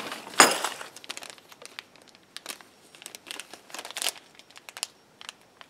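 Small clear plastic parts bags crinkling and rustling as they are handled, in irregular crackles. The loudest crinkle, with a dull thump, comes about half a second in.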